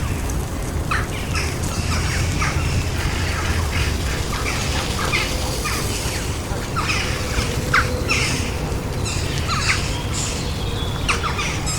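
City park ambience: many birds chirping and calling over a steady low hum of distant traffic, the calls coming thicker in the second half.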